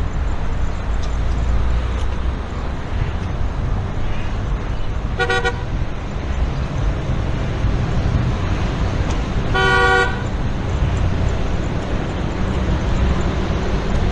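A car horn honks twice: a short beep about five seconds in and a somewhat longer one near ten seconds, over a steady low rumble of street traffic.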